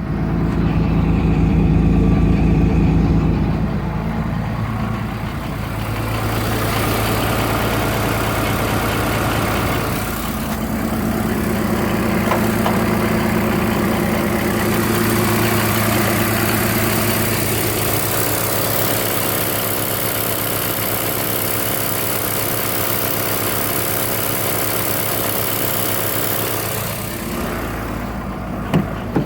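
2003 Cummins 5.9-litre inline-six turbodiesel sitting at high idle with a fast lope, louder for the first few seconds. The owner wonders whether a bad injector is the cause.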